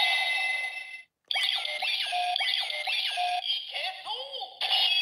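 Ryusoul Changer toy playing its electronic transformation sound effects and jingle through its small speaker, with sweeping, synthesized tones that cut out briefly about a second in and then carry on. It plays a generic sound that does not call out the inserted Ryusoul's name.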